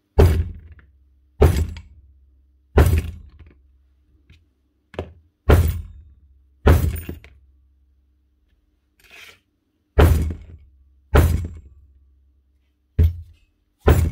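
About nine heavy knocks on the Bosch GBH 5-40 DCE rotary hammer, roughly one every second or so with a pause in the middle, each with a dull thud that dies away quickly. They are blows to free the hammer's striker, which sits jammed at the bottom of the barrel.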